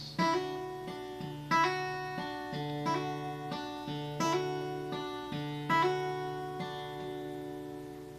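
Solo acoustic guitar playing a song's closing bars: bass notes picked in a steady beat under chords struck about every second and a half. About six seconds in it lands on a final chord that rings out and fades away.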